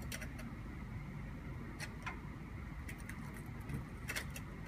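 Light clicks and taps of a serial communication cable being handled and plugged back into a control demo panel, a few clicks scattered through, the clearest about four seconds in, over a steady low hum.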